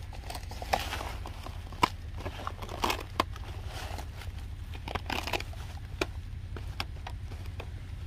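Rustling, crackling and scattered sharp clicks of a snake trap and its netting being handled and shifted, over a steady low rumble.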